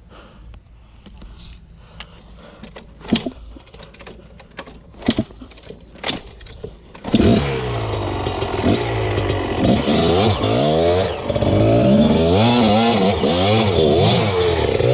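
A few sharp knocks, then about halfway through an enduro dirt bike's engine starts and is revved up and down repeatedly.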